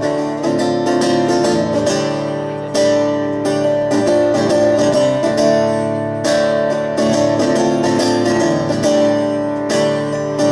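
Guitar strummed in a live performance, chords ringing between sharp strum strokes.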